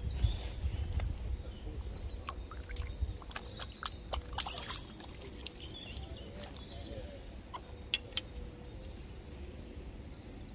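Small splashes and drips of water as a pike is released at the pond's edge, a scatter of short sharp sounds mostly in the first half, after a low rumble at the start, with birds chirping faintly.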